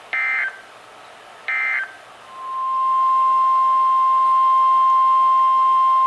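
Emergency Alert System signalling: two short bursts of SAME digital data tones, the end-of-message code closing an alert. About two seconds in, a steady single-tone attention signal (the National Weather Service 1050 Hz tone) starts and holds, announcing the next warning.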